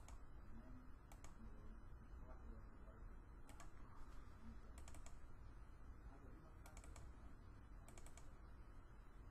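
Faint computer mouse double-clicks, about five quick pairs of clicks a second or two apart, over a low steady hum.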